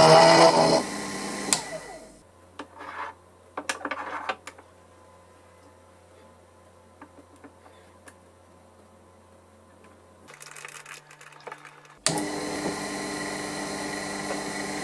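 Proxxon FF 230 mini milling machine running an end mill through the end of a steel tap, played back sped up, which stops about two seconds in. A quiet stretch follows with a low hum and a few clicks as the part is handled in the hex collet block. The sped-up milling starts again abruptly near the end.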